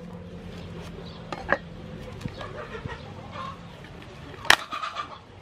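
A cleaver chopping into the husk of a palm fruit, two sharp strikes: one about a second and a half in and a louder one near the end. Chickens clucking in the background.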